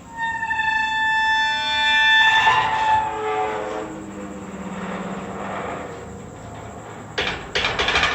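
Horror sound effect of a heavy metal door swinging open on creaking hinges: a long, high squeal that steps down in pitch into a low groan, then three sharp clanks near the end.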